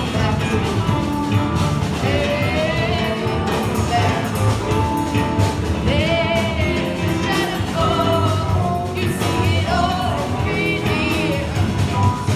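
Live rock band playing with a singer carrying a sung melody with vibrato over the full band.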